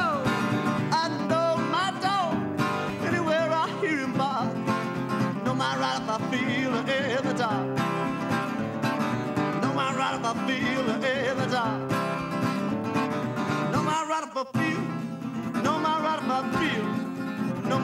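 Solo acoustic guitar played live in a fast country-blues, picked and strummed with a driving rhythm, with a brief break about fourteen seconds in.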